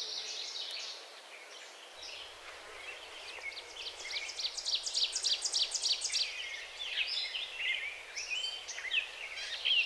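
Forest ambience with birds singing: scattered high chirps, with a fast run of repeated high notes in the middle, over soft steady background noise.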